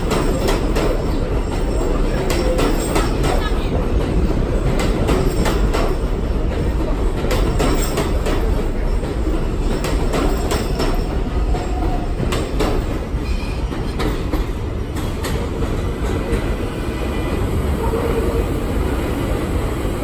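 New York City subway train of stainless-steel cars pulling out along an elevated station platform, running over the steel structure with a steady rumble and many sharp clicks of wheels over rail joints. It grows somewhat quieter over the last few seconds as it leaves.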